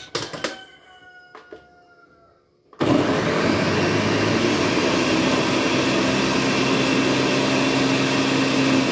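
Ninja countertop blender blending chopped carambolas (star fruit) into juice. A few clicks as the lid is fitted, then the motor starts abruptly about three seconds in and runs at a steady speed, loud.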